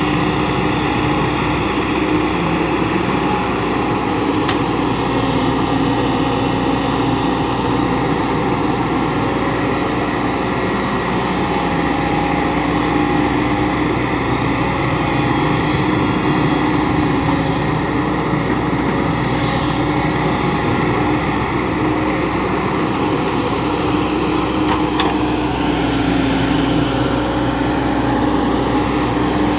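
Tracked JCB excavator's diesel engine running steadily while it digs and loads a tipper truck, with a steady hum from the machine throughout.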